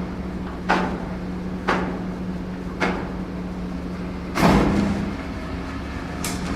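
RC excavator working rock and gravel: a steady motor hum with five sharp clattering knocks at irregular spacing, the loudest about four and a half seconds in.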